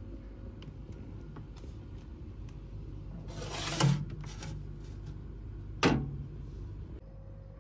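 Glass jar scraped across a refrigerator shelf and lifted out, ending in a knock about four seconds in, then a sharp single knock about two seconds later, over the steady low hum of the open fridge.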